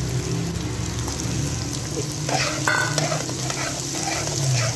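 Chopped onions sizzling in hot oil in a metal karahi, stirred with a metal slotted spoon. From about two seconds in, the spoon scrapes repeatedly across the pan, with one brief squeal. The onions are at the early frying stage, on their way to turning pink and golden.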